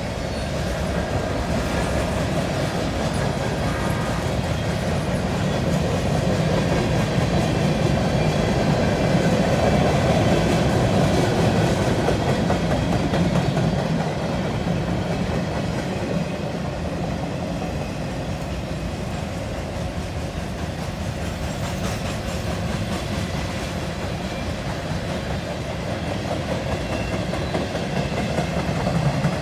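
Freight cars of a CN train rolling past: a steady rumble of steel wheels on rail with clickety-clack over rail joints. It grows louder about a third of the way through.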